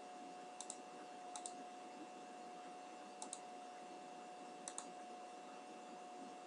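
Computer mouse button clicking: four pairs of quick, faint clicks spread a second or more apart, over a steady faint electrical hum.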